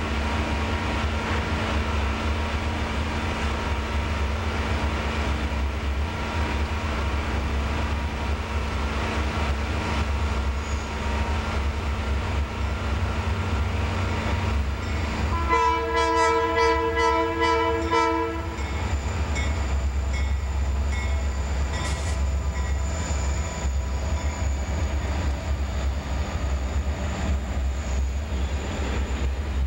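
Diesel freight locomotives rumbling as they approach and roll past close by. About halfway through, the lead unit sounds its air horn: one multi-note chord held for about three seconds, the loudest sound here.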